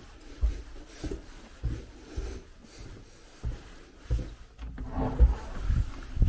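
Footsteps walking at an even pace, a low thud about every half second or a little more.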